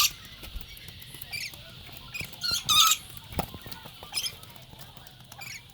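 Rainbow lorikeets making short, shrill screeches and chirps, about eight separate calls, the loudest near the middle.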